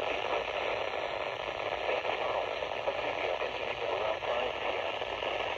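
Steady radio static hiss from a NOAA Weather Radio receiver, with no voice or alert tone coming through.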